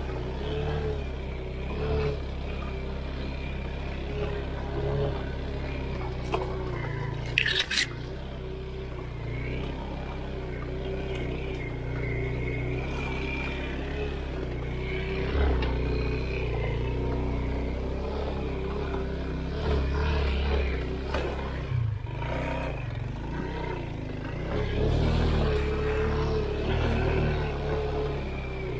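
All-wheel-drive off-road motorcycle engine running at low speed, its revs rising and falling as it pulls through boggy ground. A brief sharp high sound cuts in about seven seconds in.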